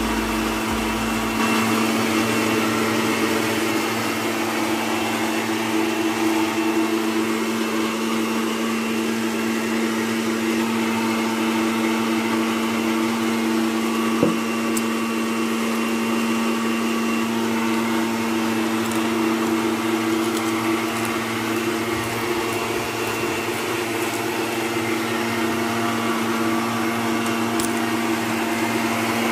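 Electric countertop blender running steadily, grinding a wet chilli-and-shallot spice paste (bumbu) smooth, a loud even motor whine at an unchanging pitch.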